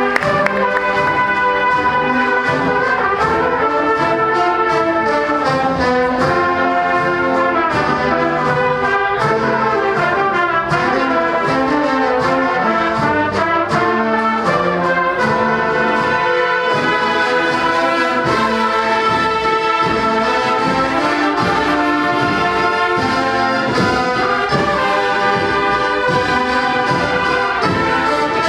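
A Holy Week agrupación musical, a marching band of trumpets, cornets and other brass with drums, playing a procession march, the brass carrying the melody over a steady drum beat.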